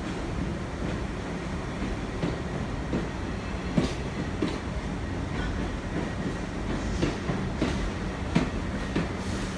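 R62 subway train pulling out: a steady low rumble with irregular clacks of the wheels over rail joints.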